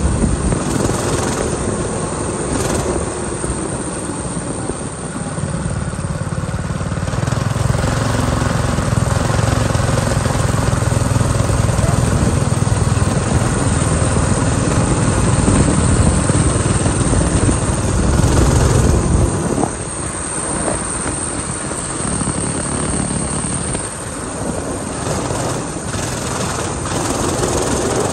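Coleman minibike's small engine running as the bike rides along, with a steady rush of noise over it. The low engine note grows stronger through the middle, then drops back abruptly about two-thirds of the way in.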